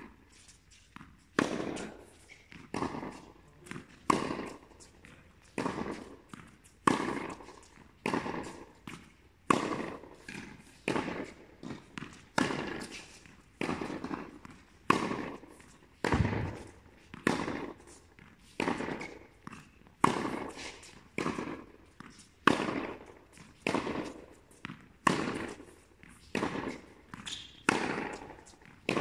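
Tennis balls struck by rackets in a steady baseline rally, a sharp pop about every 1.3 seconds with a smaller bounce knock before some of them, echoing in an indoor tennis hall.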